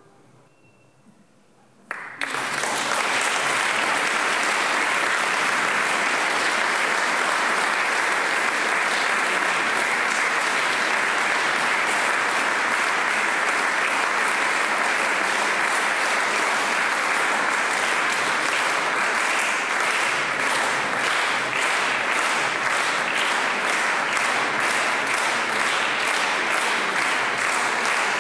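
An audience applauding. After a short hush, the clapping breaks out about two seconds in and goes on steadily, with single claps standing out more toward the end.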